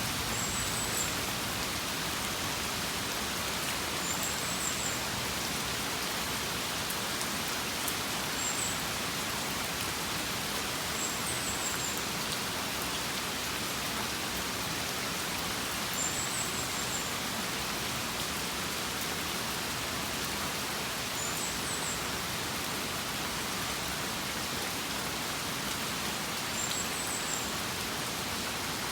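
Steady rain falling beside a house, an even hiss of rain on surfaces. A short high chirp repeats about every five seconds above the rain.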